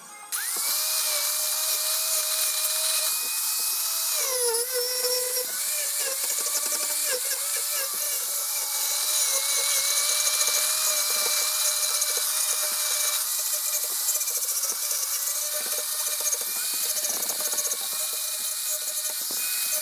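Angle grinder switched on, spinning up with a rising whine, then running while carving into a walnut branch. Its pitch sags under load about four seconds in, and briefly several more times as the disc bites the wood.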